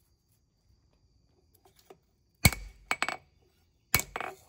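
Hammer blows on a hot leaf-spring steel knife blank on an anvil, with a metallic ring: two quick groups of about three strikes starting about halfway through, the first blow the loudest.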